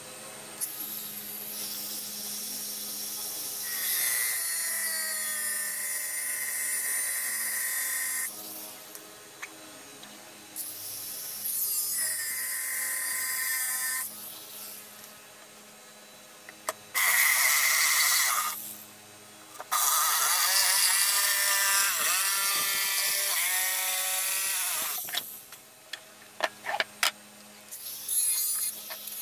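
Small handheld angle grinder running against the edges of a plywood box, grinding them down. It runs in about five passes of a few seconds each, with short pauses between them.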